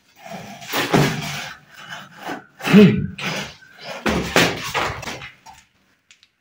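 A broken wooden window frame clattering and knocking as it shifts and topples over on a concrete floor, in three rough bursts about a second and a half apart.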